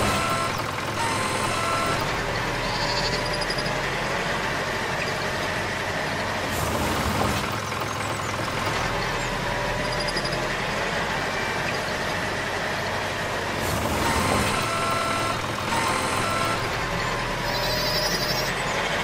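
Tractor engine sound effect running steadily, with short high beeps now and then.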